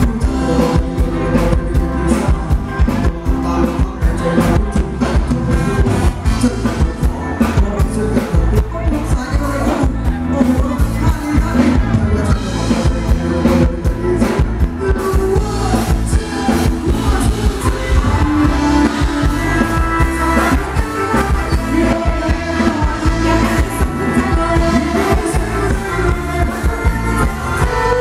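Live band playing loud Thai ramwong dance music, with a steady drumbeat and a singer.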